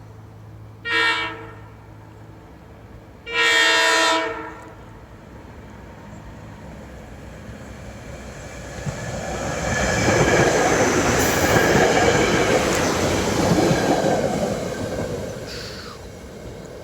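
SEPTA Regional Rail commuter train sounding its horn, a short blast followed by a longer one, then running past, its noise building to a peak and fading away. A brief falling whine comes near the end.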